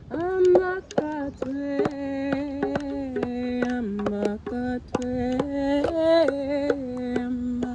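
A voice chanting light language in a long, held sung tone that moves between a few nearby pitches, dipping lower about four seconds in. Many sharp clicks sound over it.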